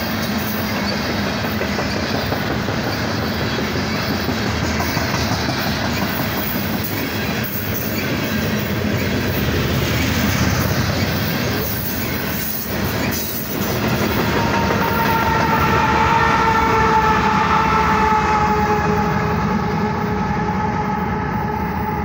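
Loaded coal hopper cars rolling past close by, a steady rumble of wheels on rail with clicking at the rail joints. From about 14 seconds in, the lead BNSF GE ES44AC locomotive's air horn sounds one long held chord over the train noise.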